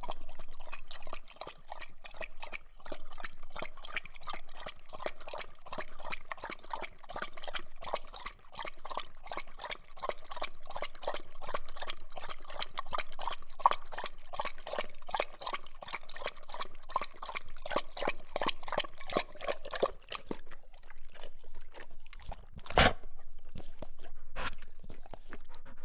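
A dog lapping water, with quick wet laps at an even pace of about four a second that slow and thin out near the end. Among the last laps comes one sharp, louder knock.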